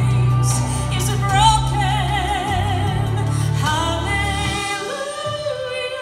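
A woman singing solo into a microphone, holding long notes with a wide vibrato over an instrumental accompaniment. The low bass of the accompaniment drops out about three-quarters of the way through, leaving the voice more exposed.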